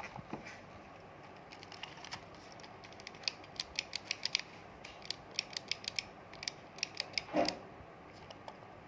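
A run of light, sharp clicks and ticks, some in quick clusters, followed by a short duller rub about three-quarters of the way through.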